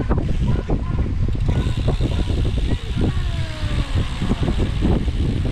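Wind rumbling on the microphone of a moving bicycle rider, with a run of knocks and rattles.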